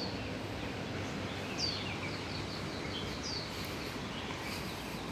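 Birds calling over a steady background hiss: one bird repeats a short high note that falls in pitch about every second and a half, with softer twittering between.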